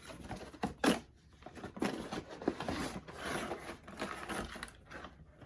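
Knot Dr. blow dryer's retail packaging being opened by hand: cardboard and plastic wrapping rustling and crinkling, with a sharp click about a second in.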